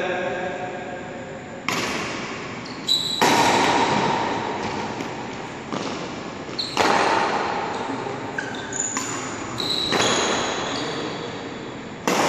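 Badminton rally: a racket strikes the shuttlecock sharply every two to three seconds, twice in quick succession near the start, and each hit echoes through the hall. Short high squeaks of shoes on the court come between the hits.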